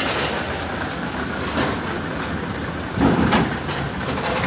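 Steady running noise of a moving vehicle, with a few light clicks and a louder knock about three seconds in.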